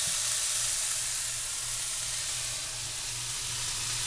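Frying pan on high heat sizzling steadily with oil and chicken juices, a continuous hiss.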